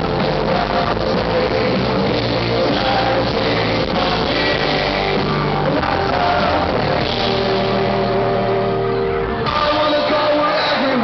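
Rock band playing live in a large hall, heard from the audience: acoustic and electric guitars with band backing and a sung vocal.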